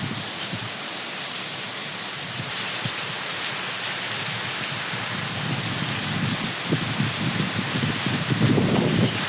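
Heavy rain pouring down in a steady hiss, with low, uneven rumbles that grow stronger toward the end.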